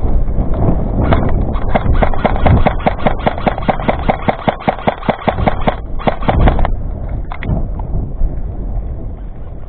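Airsoft electric rifle firing on full auto: a long string of rapid, evenly spaced shots starting about a second in and stopping near seven seconds, over rustling movement noise.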